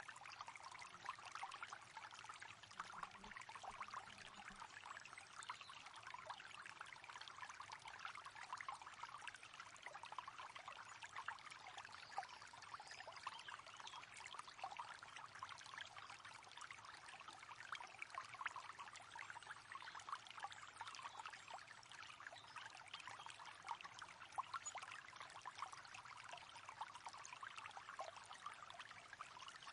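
River water running steadily over rocks, a continuous faint rush with fine splashing and trickling.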